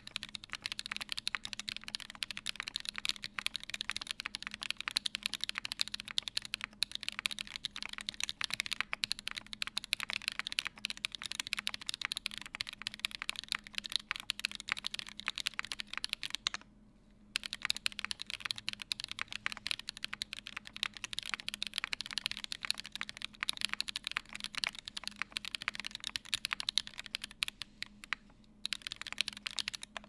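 Steady fast typing on a Midway60 mechanical keyboard with lubed and filmed AE Raed switches on an aluminium plate, under GMK Bloogaloo keycaps: a dense stream of key clacks that pauses briefly twice, once a little past halfway and once near the end.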